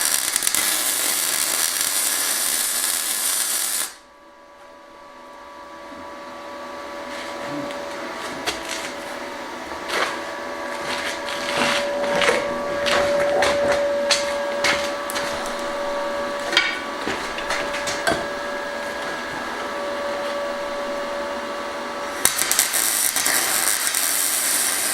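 Electric arc welder tacking steel gate tangs: a loud crackling arc for about four seconds that cuts off suddenly. It is followed by a quieter stretch of clicks and knocks over a steady hum, then the crackling arc again for the last few seconds.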